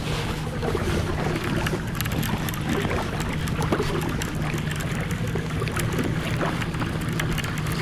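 Electric trolling motor of a motorized fishing kayak running with a steady low hum, under wind and water noise, with scattered light clicks.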